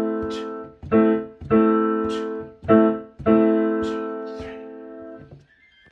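Piano playing an A minor chord, A, C and E together, softly: struck four times in a simple rhythm, each chord dying away, the last held about two seconds before it is released.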